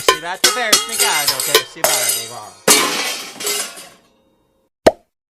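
Cartoon sound effects: a comic voice with sliding, wobbling pitch, then a sudden crash of breaking glass about two and a half seconds in that fades out over a second. A single short click comes near the end.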